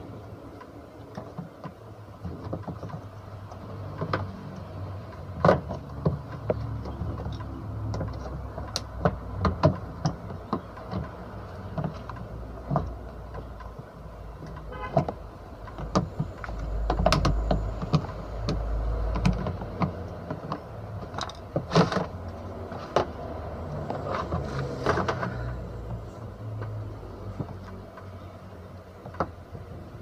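Clicks, knocks and rattles of a washing machine's plastic body cover panel being worked loose and pulled off by hand, some in quick runs, over a low background rumble.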